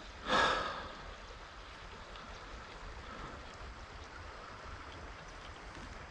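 River current running steadily, with one brief, loud sound about half a second in.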